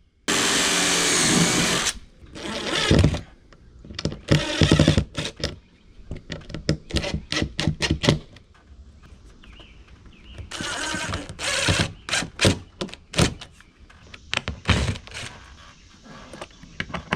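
Cordless impact driver driving screws up through a Masonite soffit into a wooden backing board: one run of about two seconds at the start, then repeated short bursts mixed with sharp clicks and knocks.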